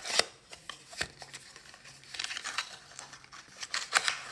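Small white paperboard box being handled, its end flap opened and folded: rustling and scraping of cardboard with sharp clicks, loudest right at the start and again about four seconds in.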